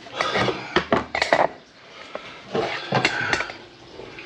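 Clattering and knocking in a grease-clogged kitchen sink being cleared, in two bursts about a second long, the first at the start and the second a little past halfway.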